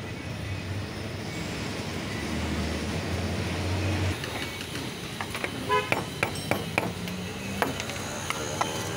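A steady low traffic rumble. About halfway in, a quick series of sharp metal clanks and knocks from a long-handled cast-iron sandwich toaster as it is handled, lifted off the gas burner and set down.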